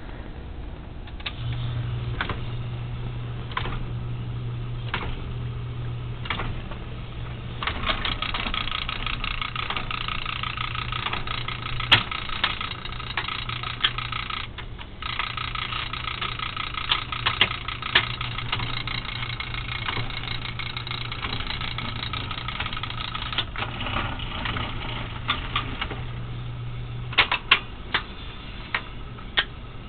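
Seeburg BL jukebox record-changing mechanism powered up: a steady low electrical hum starts about a second in, with a sharp click every second or so. The mechanism then runs with a long stretch of whirring and clatter, and near the end a quick series of sharp clicks from its switches and relays.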